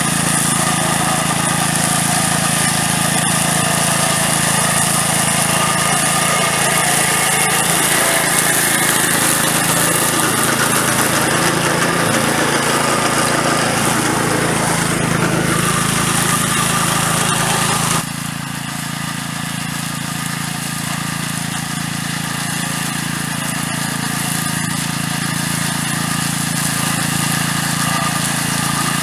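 Small petrol engine of a VARI two-wheel tractor running steadily under load, driving a Samson-56 drum mower through tall grass. About two-thirds of the way in the sound abruptly becomes somewhat quieter and duller, then slowly builds again.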